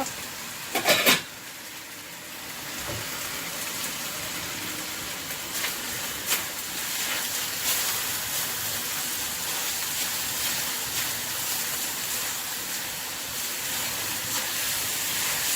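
Chicken frying with ginger and garlic in a pan, a steady sizzle, while it is stirred: a quick clatter of the utensil against the pan about a second in, and a few light knocks later.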